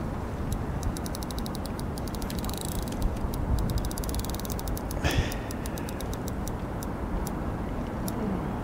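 Fishing reel clicking in quick runs of fine ticks while a hooked carp is played on light tackle, over a steady low rumble. A short louder rustle about five seconds in.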